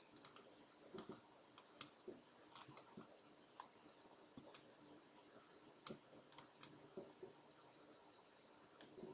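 Faint, irregular clicks of a computer mouse, a dozen or so scattered through the stretch, over near silence.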